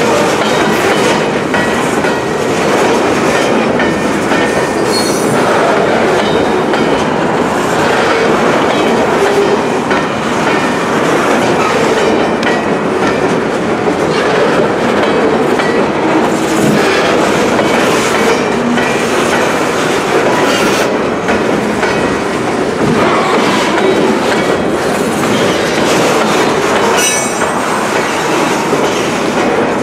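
Loaded freight flatcars rolling past at close range, their steel wheels clattering steadily over the rail joints. A few short high wheel squeals come in now and then.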